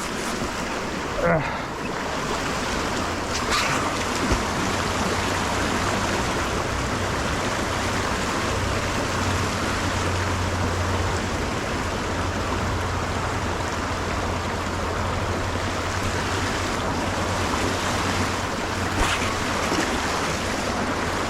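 Flowing creek water rushing steadily, with wind rumbling on the microphone and a few faint knocks.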